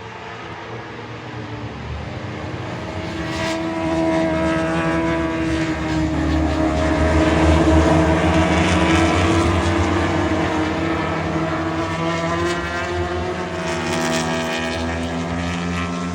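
Several 1000cc racing superbike engines running together at high revs. The overlapping engine notes build over the first few seconds into a sustained loud drone that hardly changes pitch.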